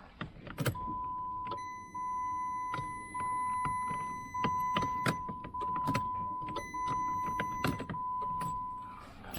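Power Probe circuit tester beeping a steady high tone in seven pulses of about a second each, with scattered clicks. The beep signals that the starter's signal wire is getting its 12-volt start signal with the key turned to start.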